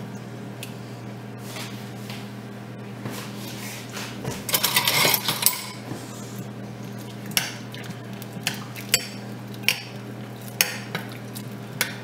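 Metal spoon clinking against a stainless steel saucepan while potatoes in stock and butter are basted: a flurry of clatter about four seconds in, then single sharp clinks about once a second, over a steady low hum.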